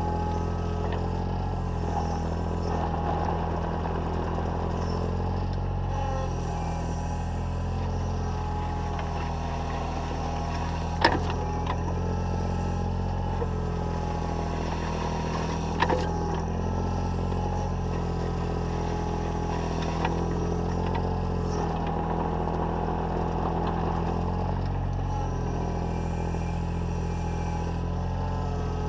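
Takeuchi TB014 mini excavator's diesel engine running steadily under hydraulic load as the bucket drags and levels gravel, with the bucket scraping over stones. Two sharp knocks stand out, one about a third of the way in and another just after halfway.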